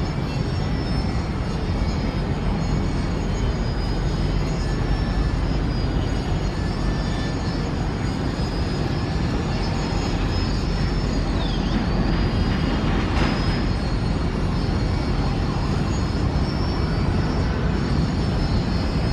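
Boeing 777-300ER's GE90 jet engines, a steady heavy rumbling noise as the airliner lands and rolls out on the runway.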